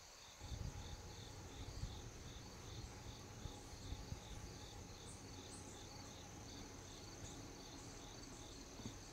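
Insects calling: a high pulsing chirp repeating about three times a second over a steady high buzz. A faint low rumble comes up underneath about half a second in.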